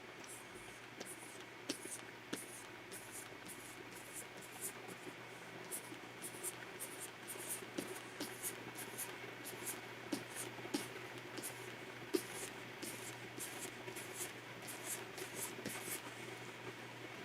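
Stylus nib scratching on the surface of a Wacom 24 Pro pen display in many short, quick, irregular strokes, a few a second, over a faint steady hum.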